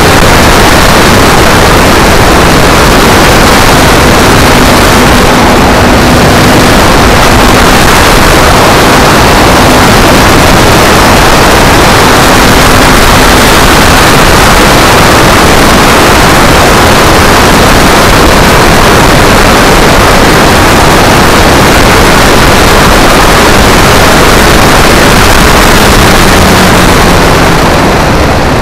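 Propeller-driven plane in flight, heard through a tiny keychain camera mounted on it: a loud, steady rush of wind and propeller noise that overloads the little microphone. A faint engine tone sits underneath and drops slightly in pitch near the end.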